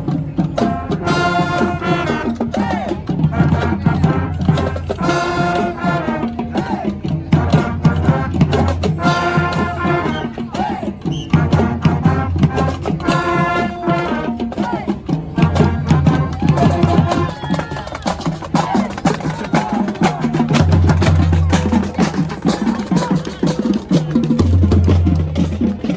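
Upbeat music with a steady drum beat, a pulsing bass line and a melody line over it.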